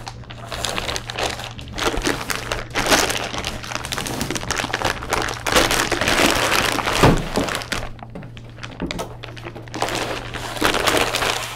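Plastic anti-static bag crinkling and rustling as it is opened and slid off a metal rack-mount firewall, with a knock about seven seconds in as the unit is handled.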